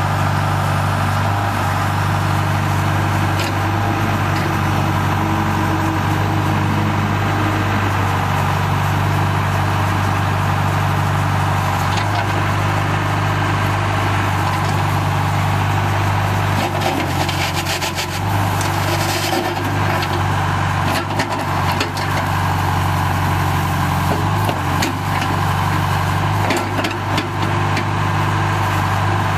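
Diesel engine of a 2002 John Deere 310G backhoe, a John Deere 4045 four-cylinder, running steadily with small shifts in engine speed. A spell of hiss and clicking rattles comes about two-thirds of the way through, with scattered clicks after it.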